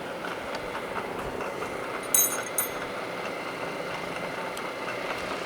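Two sharp metallic clinks about two seconds in, as a workpiece is loosened and reset in a milling-machine vise, over a steady machine-shop hum.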